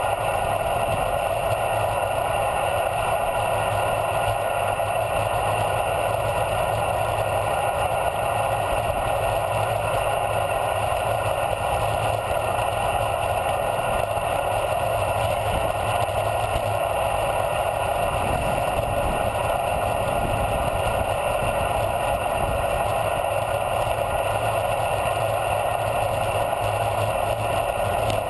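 Steady rush of wind and tyre noise from a bicycle coasting downhill fast on asphalt at 30 to 40 mph, picked up by a camera mounted on the handlebars.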